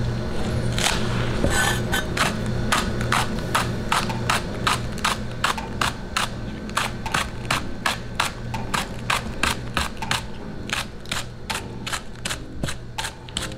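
Metal wok spatula striking a wok again and again, about three sharp clanks a second, as fried rice is stir-fried and broken up. A steady low hum runs underneath.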